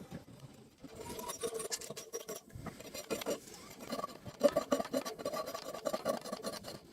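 Dry rice stalks rasping and rustling as they are cut and handled by hand, in quick irregular strokes starting about a second in.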